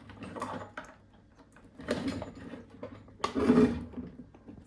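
Scratchy static from an AM CB handheld radio's speaker, crackling in three rough bursts over a steady low hum.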